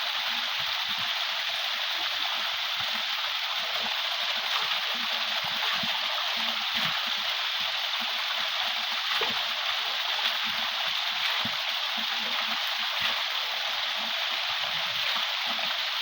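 Steady rush of a waterfall and fast-running river water, an even unbroken hiss at a constant level.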